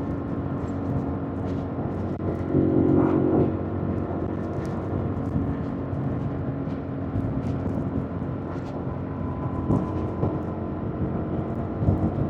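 2025 Yamaha MT-07's 689 cc parallel-twin engine running at a steady, even pitch, with a brief louder swell about three seconds in and a couple of short knocks near the end.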